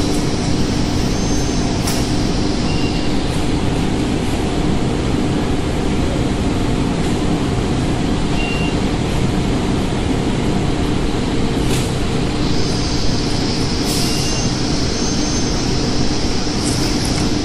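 Veneer press dryer running: a loud, steady industrial hum and rumble from the machine and its wire-mesh feed conveyor. A high hiss fades out about three seconds in and comes back near the twelve-second mark, with a few sharp ticks.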